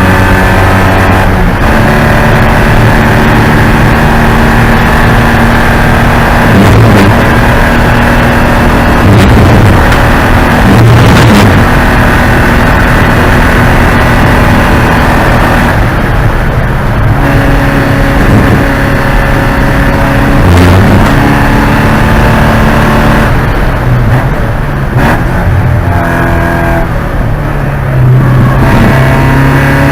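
Porsche 944 Spec race car's four-cylinder engine running hard. It is loud throughout, its pitch rising and dropping in steps with several gear changes.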